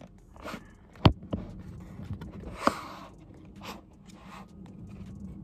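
A few sharp clicks and knocks with soft rustling between them; the loudest click comes about a second in and another near the middle.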